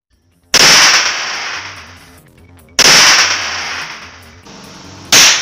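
Three sharp, very loud cracks, about two and a half seconds apart, each fading away over a second or so: small detonations of nitrogen triiodide (touch powder), the shock-sensitive contact explosive.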